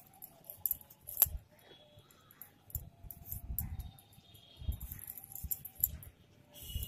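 Hands working macrame cord onto a ring: soft rubbing and irregular low thumps with scattered light clicks, one sharp click about a second in.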